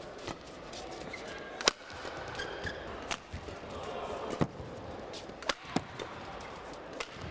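Badminton rackets striking a shuttlecock in a fast doubles rally: a sharp crack about every second, the loudest about two seconds in.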